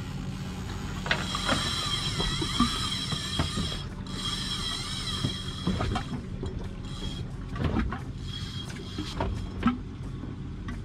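Fishing reel's drag whining as a hooked fish strips line on its first run, with reel clicks, over a steady low hum. The whine runs from about a second in to around seven seconds, wavering in pitch.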